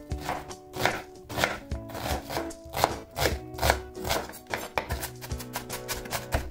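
Chef's knife chopping onion on a wooden cutting board, a run of sharp knocks about two or three a second that quicken into fast mincing strokes in the last couple of seconds.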